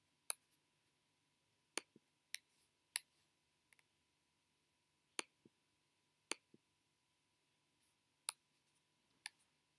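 Computer mouse clicking: about eight short, sharp clicks at irregular intervals, over a faint steady high tone.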